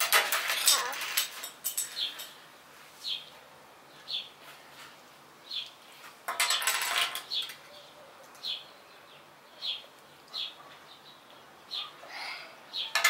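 Small plastic toy pieces clicking and rattling in the hands, in two bursts: near the start and about halfway. A short high bird chirp repeats about once a second underneath.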